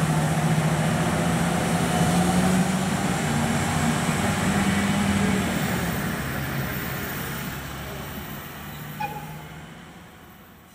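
Train running with a low steady drone, then fading away over the second half. There is a brief high squeal about nine seconds in.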